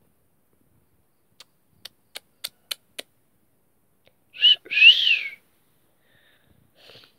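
A quick run of six sharp clicks, each louder than the last, then a puppy gives a short high squeal followed by a longer one that rises and falls in pitch.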